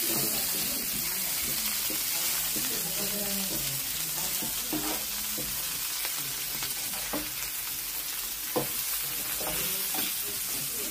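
Meat and slabs of cheese sizzling steadily on a hot gas flat-top griddle, with a metal utensil scraping and clicking against the steel plate every second or two as the pieces are turned; the sharpest click comes about eight and a half seconds in.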